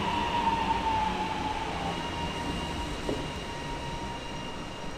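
Melbourne High Capacity Metro electric train slowing to a stop, its traction motor whine falling in pitch and then holding steady over the rumble of the wheels on the rails. A short knock about three seconds in.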